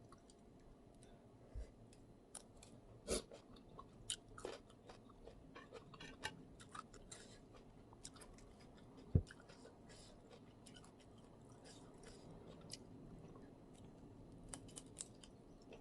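Close chewing with soft wet mouth clicks, someone eating a spicy instant-noodle salad with shrimp and squid. A low thump comes about three seconds in and a louder one about nine seconds in.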